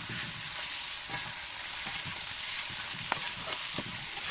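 Chicken pieces with onions and spice paste sizzling in hot oil in a kadai while being stirred with a spatula, a steady frying hiss with a few scrapes and knocks of the spatula against the pan. It is the kosha stage, the meat being sautéed hard in the spices.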